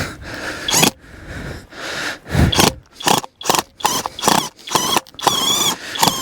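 Impact drill driving a tent screw into the ground, run in short stop-start bursts. The screw is not going in any better; the owner takes it to be either hitting a rock or the impact drill not working well.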